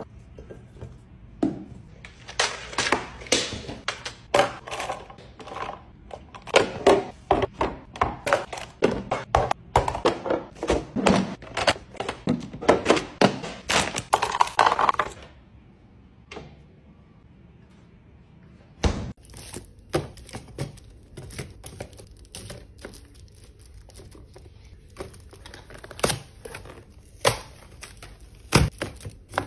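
Handling of packaging: a plastic bag of foil-wrapped chocolates crinkles with quick dense clicks as it is opened, stopping about halfway through. After a short lull come sparser single knocks and taps as cardboard and small drink cartons are set into a plastic organizer.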